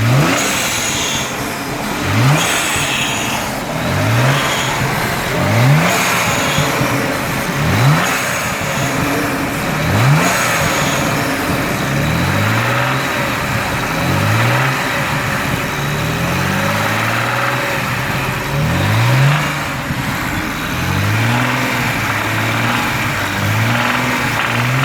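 BMW N54 twin-turbo inline-six revved again and again in short blips, the engine pitch rising with each one, about every two seconds. The revs are run up toward 3,000 rpm, where a soft "rrrrrr" knock shows: early rod knock.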